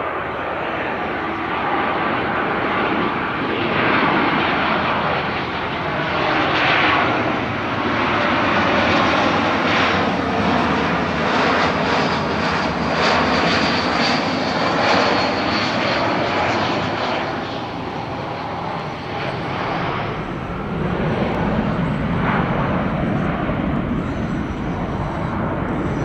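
Airbus A319 jet engines heard as the airliner makes a low flyover. The engine noise swells as the plane approaches and passes, with a pitch that shifts as it goes by. It eases briefly, then swells again as the plane moves away.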